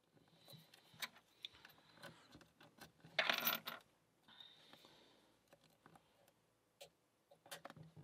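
Faint metallic clicks and clinks of a lock pick and tension tool working in the keyway of a small brass Abus 65/20 padlock, with a louder metallic rattle a little over three seconds in.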